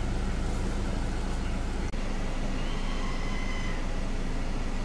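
Steady low hum of an idling vehicle engine, with a single click about two seconds in.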